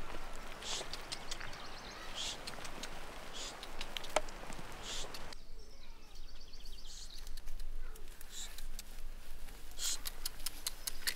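Rural field ambience: repeated short high-pitched chirps with many scattered short clicks and crunches. The background hiss drops away about halfway through.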